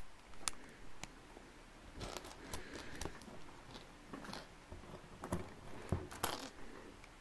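Plastic LEGO bricks clicking and rattling as pieces are picked from a loose pile and pressed onto a BrickHeadz model: a string of light, irregular clicks.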